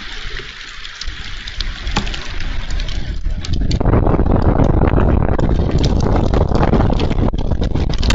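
Storm wind buffeting the outdoor nest camera's microphone: a heavy, gusting rumble that eases for a moment, then swells again about three and a half seconds in. Scattered sharp ticks of rain and hail striking run through it.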